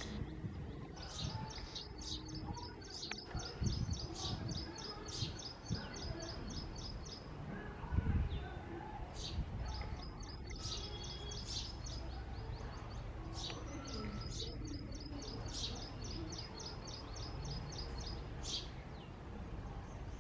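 Male house sparrow calling nonstop at a nest box: runs of quick, evenly repeated chirps, about four a second, broken up by louder single chirps. Low background noise underneath, with a thump about eight seconds in.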